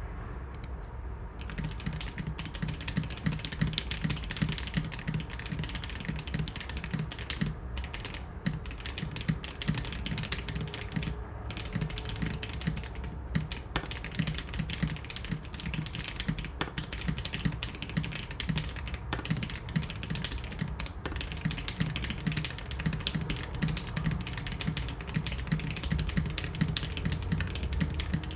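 Steady typing on a custom mechanical keyboard with lubed, filmed SP Star Meteor White linear switches in a top-mount aluminum-plate board: a continuous patter of keystrokes with a deep thock and occasional louder stabilized-key hits.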